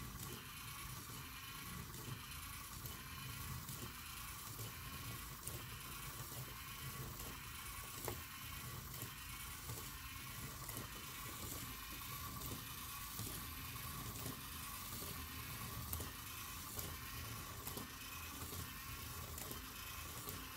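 LEGO EV3 motor and plastic gears whirring steadily as the walker robot's crank-driven legs step, in an even rhythm of a little over one stride cycle a second, with a few light clicks.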